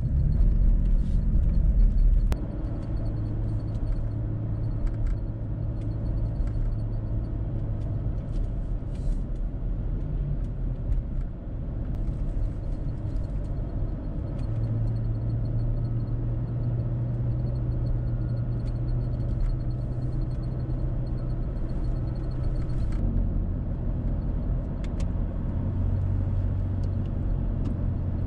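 Toyota Tacoma driving on the road: a steady engine hum and road rumble, the engine note shifting a few times as the speed changes.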